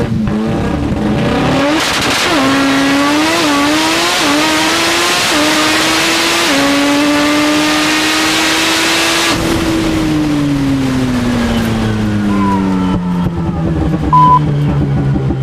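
Mazda 13B two-rotor rotary engine of a drag-racing RX2 at full throttle, heard from inside the car: from about two seconds in the pitch climbs and dips sharply with each air-shifted gear change, about once a second. About nine seconds in the throttle comes off and the engine note falls away steadily as the car slows; a short beep sounds near the end.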